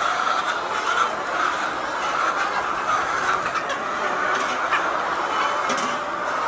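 A large flock of laying hens clucking continuously, many birds overlapping in a dense, steady chorus.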